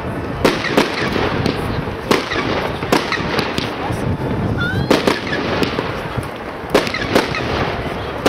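Aerial firework shells bursting in a string of sharp bangs, roughly one a second and irregularly spaced, over a continuous background rumble.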